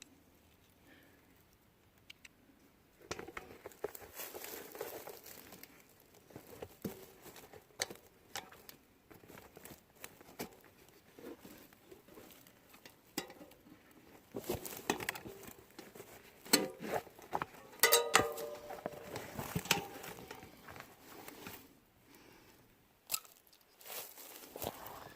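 Hands working on a mountain bike wheel and tire: scattered clicks, knocks and crinkling rustles, busiest in the second half.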